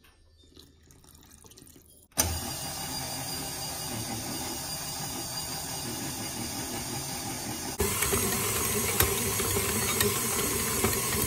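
A KitchenAid stand mixer's motor switches on about two seconds in and runs steadily, its flat beater mixing flour, oil and water into a dough. A little past halfway it gets louder, with a few sharp knocks as the beater works the dough.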